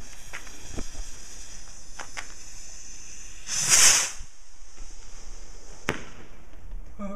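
Consumer fireworks: a steady high fizzing hiss that fades away over the first few seconds, a loud half-second rush of noise about four seconds in, and a single sharp bang near six seconds, with scattered fainter cracks throughout.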